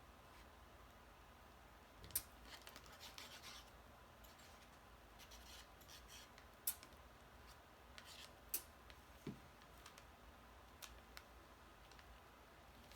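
Faint scattered clicks, scratches and rubbing of paper card pieces being handled and pressed together on a work surface.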